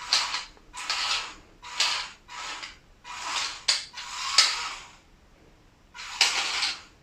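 Small DC gear motors of a toy RC car whirring in short bursts, starting and stopping about eight times as the joystick is worked, with a pause near the end.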